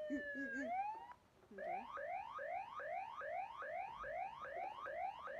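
Electronic toy siren from a Hess toy police vehicle. A falling wail tails off in the first second. After a brief gap it plays a rapid yelp: quick rising sweeps, about three a second.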